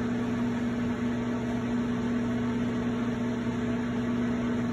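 Electric potter's wheel running at a steady speed, giving a constant motor hum.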